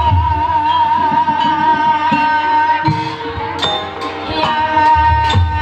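Ebeg accompaniment music: a held, slightly wavering melody line over low drum strokes and sharp struck-percussion hits.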